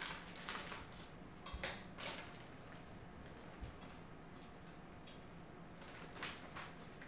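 Faint crinkling of a plastic freezer bag and frozen chicken tenderloins set down on a plate. There are a few short handling sounds, the clearest near the start and about six seconds in.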